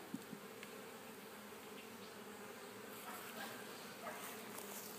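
Honey bees buzzing steadily around an opened hive, with a few faint clicks and knocks of frames being handled.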